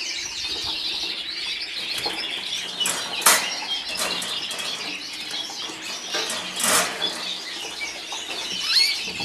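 Colour canaries fluttering their wings inside a wire cage, with two louder bursts of flapping, one about a third of the way in and one past the middle, while many canaries chirp throughout.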